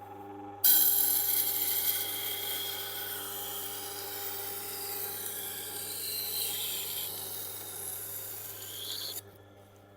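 Steel knife blade being ground on the turning stone of a Tormek T8 wet sharpener: a hissing scrape that starts abruptly about half a second in and stops just after nine seconds, over the steady hum of the machine's motor. The bevel is still being set, with no burr formed yet.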